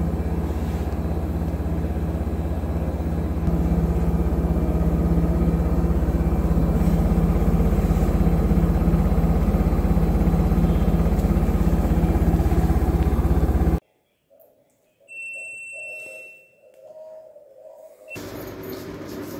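IFB ExecutivePlus 8.5 kg front-load washing machine running with its drum turning at speed: a loud, steady hum with a strong low tone, stepping up slightly a few seconds in. About two-thirds through it cuts off abruptly, leaving fainter sounds with a brief high tone, and a quieter steady running sound returns near the end.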